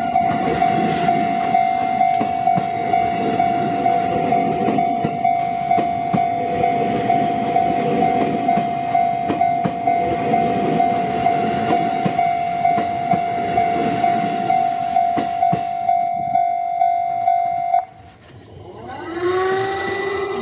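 Japanese level-crossing alarm ringing steadily at about two strokes a second while an E751 series electric train passes with rumbling and wheels clacking over rail joints. The alarm cuts off suddenly near the end, and a rising whine follows.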